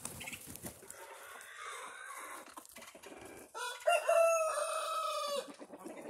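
A rooster crowing once: a single drawn-out call starting about three and a half seconds in, lasting about a second and a half and cutting off sharply. Before it, faint clucking from the chickens.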